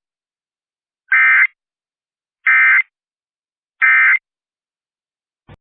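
Emergency Alert System end-of-message code: three short, identical bursts of warbling digital data tones about a second apart, signalling the end of the alert. A faint click near the end.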